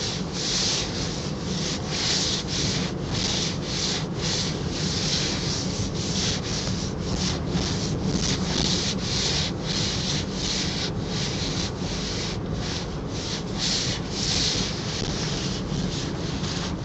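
Shiny PVC rain suit rustling and swishing as the wearer moves, a run of short rubbing swishes about one to two a second, over a steady low hum of the car.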